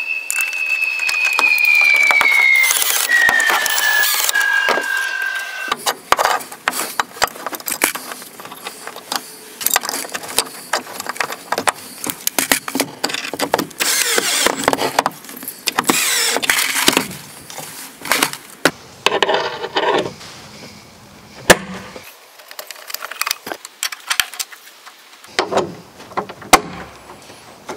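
Cordless drill driving a screw into wood to fasten a stainless steel ball-stud bracket: the motor's whine falls steadily in pitch over several seconds as the screw drives in. A long run of clicks, knocks and rattles follows as the metal bracket and screws are handled.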